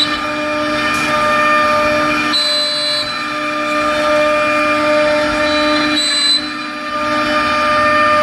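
CNC router spindle whining steadily at one pitch as a 12 mm ball-nose bit carves a relief into pine, over a rough cutting noise. The sound dips briefly twice, a little past two seconds and about six seconds in.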